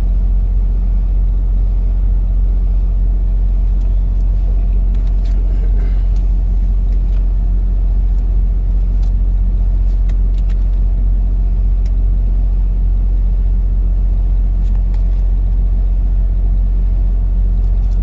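Steady low vehicle rumble throughout, with a few faint clicks and rustles here and there.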